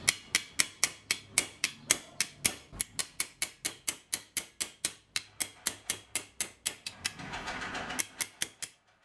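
Sharp, evenly spaced mechanical clicks, about four a second, with a short hiss of noise near the end before the sound cuts off.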